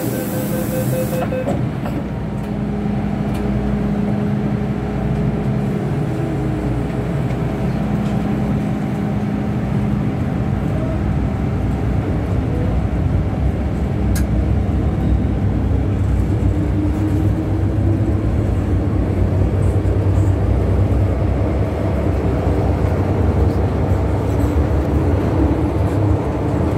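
Hong Kong MTR metro train running, heard from the platform and then inside the car: a steady low rumble that grows heavier about halfway through as the train gets under way, with a slowly rising whine past the middle. A brief hiss with a beeping tone sits at the very start.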